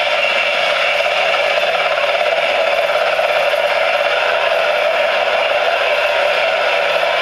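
Twin ducted rotors of a model tilt-rotor aircraft running at a steady speed: an even, unchanging whir.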